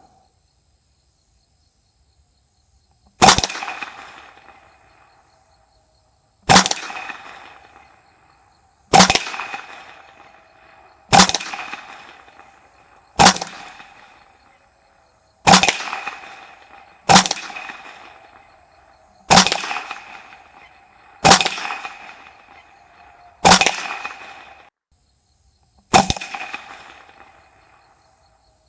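Ruger 10/22 Takedown .22 LR rifle firing eleven single shots about two to three seconds apart, each crack followed by a short decaying echo.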